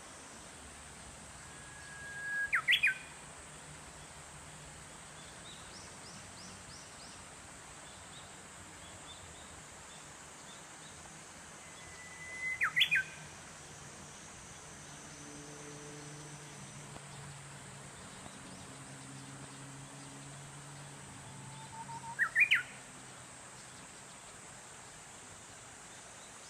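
Japanese bush warbler (uguisu) singing its 'hoo-hokekyo' song three times, about ten seconds apart: each a held whistle followed by a quick sweeping flourish. Faint high chirps from other birds come in between.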